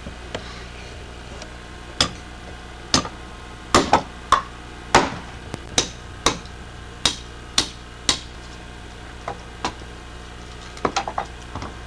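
A hand tool striking a block of very hard wood in a series of about fifteen sharp, irregular blows, some in quick succession, chopping guide cuts so that the piece will split.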